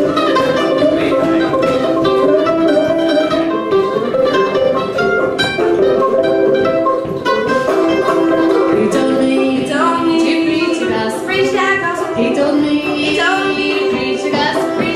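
Old-time string band playing live, with mandolin and banjo picking the tune. About two-thirds of the way through, voices come in singing together over the strings.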